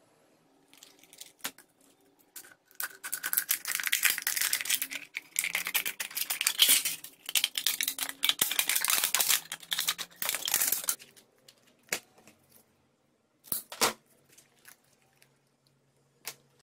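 Scissors cutting through a thin aluminium drink can, a dense crackling and crinkling of the metal for about eight seconds, followed by a few separate sharp clicks.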